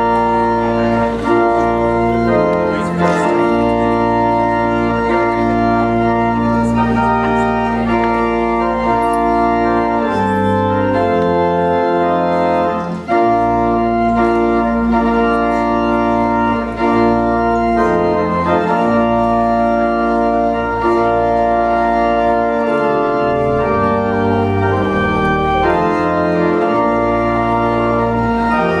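Organ playing slow, sustained chords over a held bass line, the chords changing every second or two.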